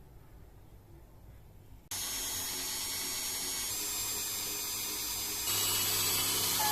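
Electric power tool switching on about two seconds in and running steadily with a whine, getting louder shortly before the end.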